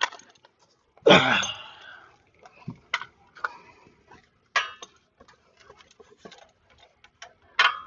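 Scattered metallic clicks and clinks of a wrench and socket being fitted onto the 18 mm crankshaft bolt, with a brief ringing clink near the end.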